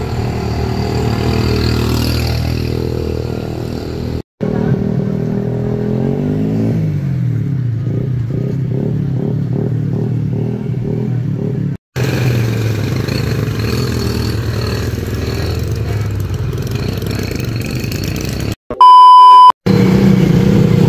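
Motor vehicle engines running in several short segments that cut in and out, one rising in pitch as it revs up about six seconds in. Near the end comes a loud electronic beep lasting under a second.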